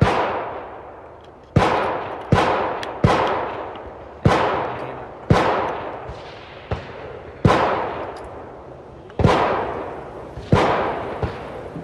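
About eleven gunshots at irregular intervals, a few fainter than the rest, each followed by a long echoing decay: several firearms going off at a shooting range.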